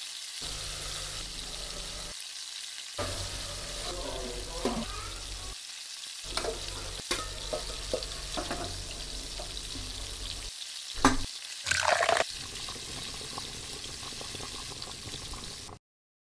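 Onions, tomatoes and then chicken frying in oil in an aluminium pressure cooker: a steady sizzle with a spoon stirring and scraping. The sizzle cuts off and comes back several times, and there are a few short knocks, two sharper ones about two-thirds of the way through.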